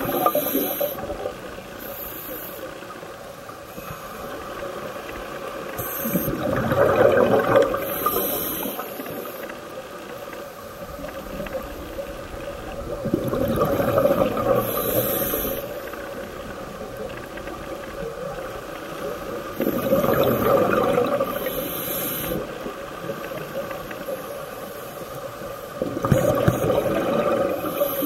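Scuba regulator breathing heard underwater: a hiss of inhaling, then a gurgling rush of exhaled bubbles, repeating about once every six to seven seconds.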